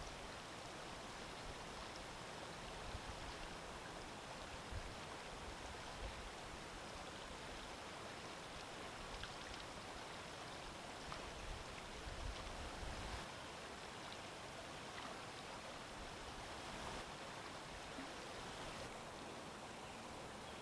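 Steady, faint rush of flowing river water, with brief low rumbles about six and twelve seconds in.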